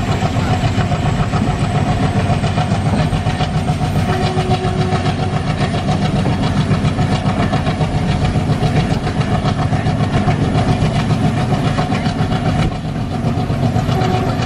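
ALCO WDG-3A diesel locomotive's turbocharged ALCO 251 engine chugging hard under power, heard from the train behind it, with a fast, even throb and wheels running on the rails.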